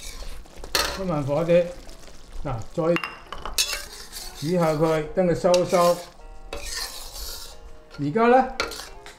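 Metal wok spatula stirring and scraping around a wok of minced beef sauce, which sizzles lightly as it simmers on low heat and thickens with potato starch slurry.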